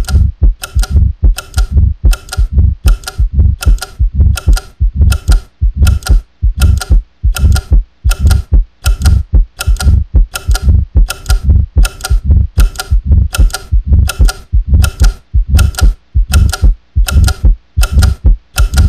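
Loud, steady clock-like ticking, about two ticks a second, each tick with a low thump beneath it.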